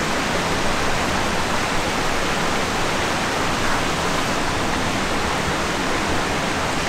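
Shallow rocky creek running, a steady even rush of flowing water.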